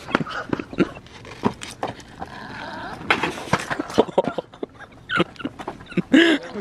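A longboard on street pavement: its wheels and deck clatter and knock repeatedly as the rider steps on and pushes off. A short, loud yell near the end.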